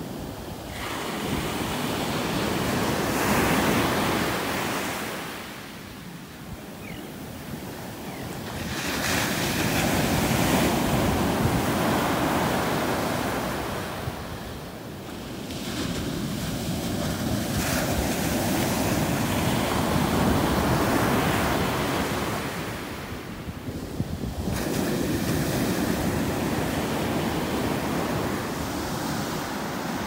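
Ocean surf breaking and washing up a sandy beach, swelling and fading with each wave, with wind rumbling on the microphone.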